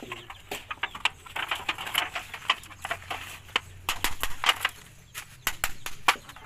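Rusty galvanized iron sheet being worked into shape: bending and handling of the thin metal sheet, then a hammer tapping along the fold. It comes as a run of sharp, irregular metallic taps and clicks, loudest in the second half.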